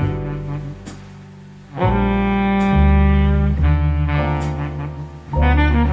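Music with deep, sustained bass notes and a melody above, played by Qualio IQ loudspeakers driven by a TPA3255 class D amplifier and recorded by microphones in the listening room. The music drops quieter about a second in and comes back loud just before two seconds.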